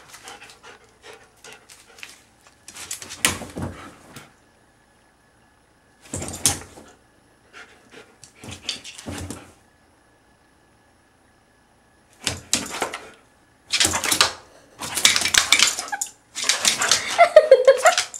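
A Siberian husky pawing and scrabbling at a fabric dog bed and the wooden floor while chasing a laser dot, in a string of short scratchy bursts with quiet gaps. The bursts come closer together and get louder over the last few seconds.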